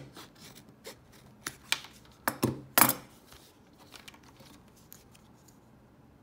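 Scissors cutting through a leather phone case and its thin plastic inner shell: a run of sharp snips and crunches over the first three seconds or so, the loudest two close together just before three seconds in.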